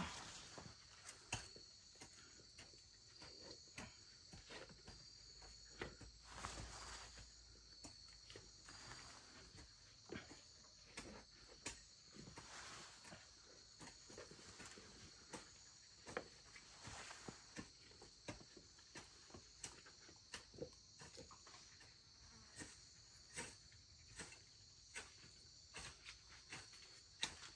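Insects chirring steadily in a high, even drone, with scattered soft clicks and knocks at irregular intervals.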